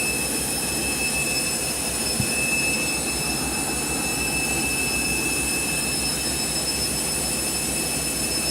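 Candy washing machine spinning: a steady high motor whine over a low, rhythmic thrum from the turning drum.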